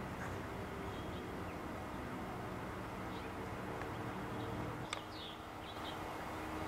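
Faint steady background hiss and low hum of outdoor ambience, with a single click about five seconds in and a few faint bird chirps just after it.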